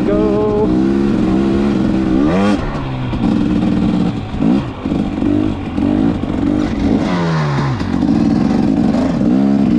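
KTM dirt bike engine running under changing throttle, its pitch rising and falling as it is revved and let off. There is a sharp rev-up about two and a half seconds in and a falling drop in revs around eight seconds in.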